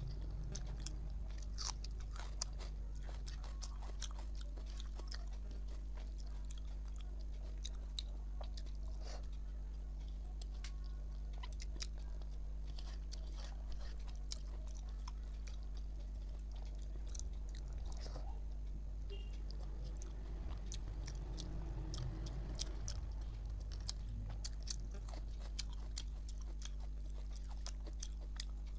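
Close-up mouth sounds of a person chewing rice and curry eaten by hand: soft wet chewing with many small scattered clicks and crunches, over a steady low hum.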